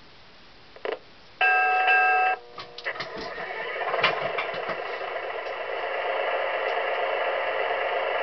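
Proto-Sound 1 system of an MTH RailKing Burlington Zephyr model train powering up: a click, a single steady horn-like tone lasting about a second, a few clanks, then the recorded diesel engine sound starting up and building to a steady run. There is almost no bass, as from the model's small speaker.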